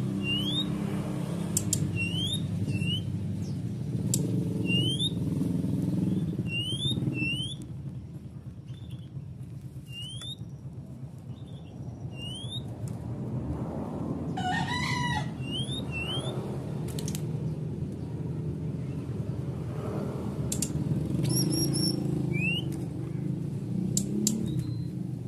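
Brown-chested jungle flycatcher (SRDC) calling with short, sharp rising chirps, repeated at irregular intervals over a steady low background rumble, the calling of a bird in high breeding condition. About midway a longer call with several stacked tones sounds once.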